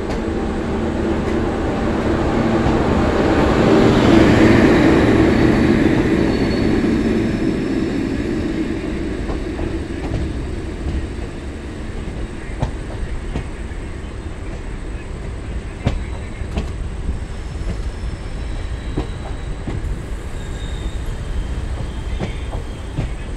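Indian Railways LHB passenger coaches rolling past close by, wheels clattering over the rail joints. It is loudest about four seconds in, as the rear of the train goes by, then fades to a low rumble with scattered clicks as the train departs.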